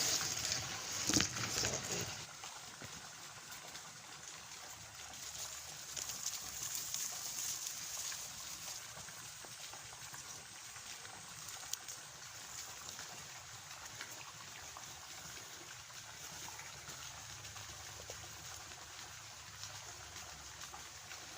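Steady, faint outdoor hiss of trickling water, after a couple of sharp knocks and a louder rustle in the first two seconds.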